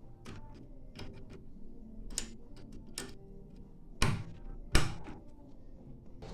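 Scattered light clicks and taps of small tools and parts being handled, with two louder sharp knocks about four and five seconds in.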